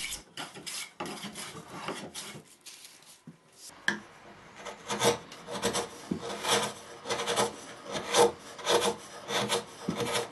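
Thin steel blade scraping across the end of a pine block in short, repeated strokes. There is a brief pause about two and a half seconds in, then the strokes go on about two a second.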